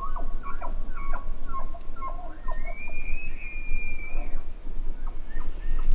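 Bull elk bugling: short grunting notes, then one long high whistle that rises and holds for about a second and a half around the middle, then a few shorter notes near the end, over a steady low rumble.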